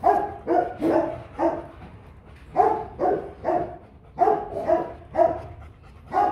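A dog barking repeatedly, in runs of three or four barks about half a second apart with short pauses between the runs.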